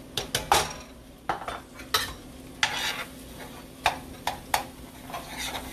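Metal spoon scraping and knocking against a cast iron skillet in irregular strokes while flour is stirred into hot butter and grease, with a light sizzle: the start of a roux for gravy.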